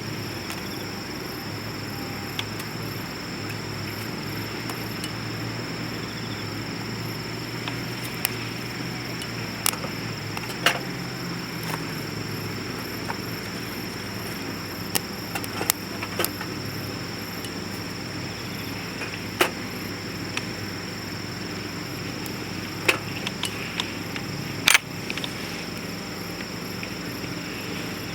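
Cooking over a wood-burning rocket stove: a steady hiss with scattered sharp crackles and pops, the loudest about ten seconds in and again near the end.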